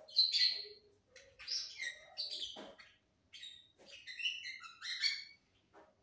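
Lovebird chirping: a run of short, high chirps in about five bursts, with brief gaps between them.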